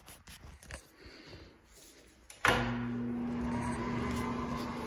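A wall switch clicks about halfway through, and a bathroom exhaust fan starts up at once and runs with a steady hum.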